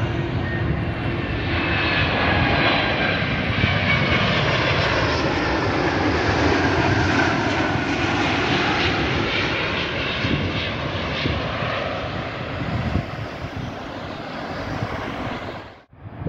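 Airbus A350-1000 with Rolls-Royce Trent XWB engines passing low overhead on final approach, gear down. Steady jet engine noise swells and then fades as it goes by, with high whines gliding down in pitch as it passes, and cuts off suddenly near the end.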